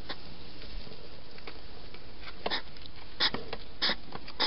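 Wild hedgehog snuffling: short, noisy puffs about every half second, starting about halfway in, over a steady hiss.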